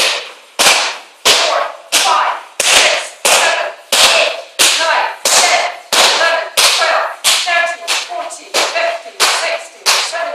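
Muay Thai kicks landing on a kick pad held by a trainer: a sharp smack about every two-thirds of a second, steady and even, some fifteen in a row.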